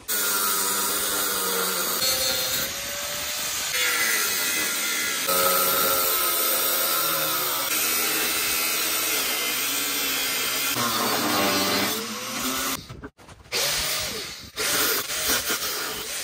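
Angle grinder cutting through a welded-in steel piece, its motor whine dipping in pitch and recovering as the wheel bites. It stops about 13 seconds in, then runs again in a few short bursts.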